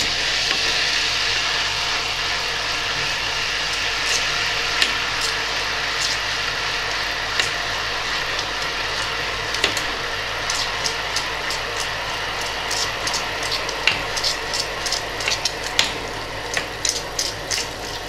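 Sugar-and-water syrup heating to the boil in a stainless saucepan on an induction hob at full power, stirred with a wooden spoon: a steady hiss, with little crackling pops coming more and more often from about ten seconds in as it starts to boil.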